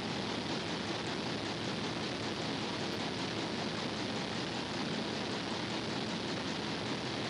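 Steady, even hiss with no separate knocks, clicks or tones.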